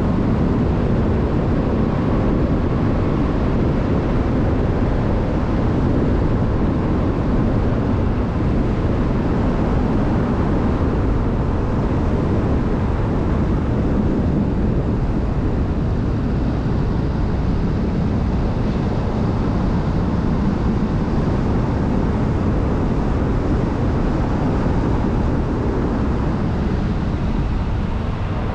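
Car driving along a winding road: a steady low rumble of tyre, wind and engine noise, easing a little near the end.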